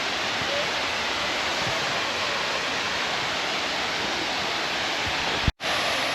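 Waterfall rushing in a steady, even roar of falling water, cut out for an instant near the end.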